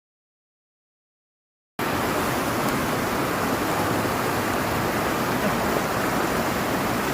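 Dead silence for nearly two seconds, then the steady, even rushing of fast-flowing water, like a mountain stream.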